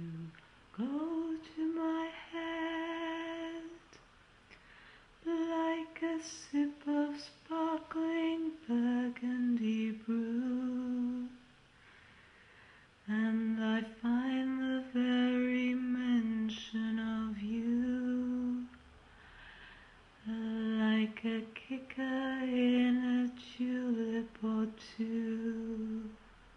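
A woman humming a slow, wordless melody with no accompaniment, in four long phrases with short pauses between them.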